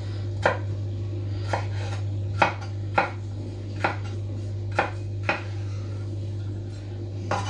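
Chef's knife slicing green bell pepper on a wooden cutting board: about eight separate knocks of the blade on the board, at an uneven pace of roughly one a second, over a steady low hum.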